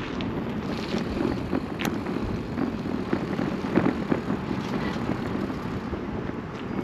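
Wind rumbling on the microphone, with a few faint irregular clicks.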